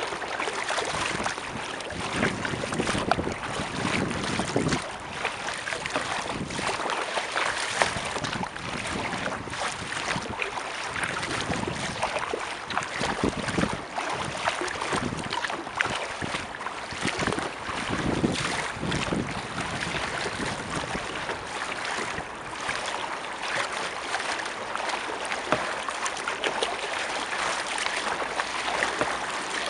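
Water splashing and lapping from kayak paddle strokes close to the microphone, in many short irregular splashes, with wind buffeting the microphone.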